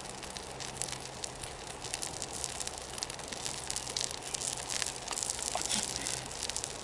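Wood campfire crackling, with frequent small irregular pops and snaps.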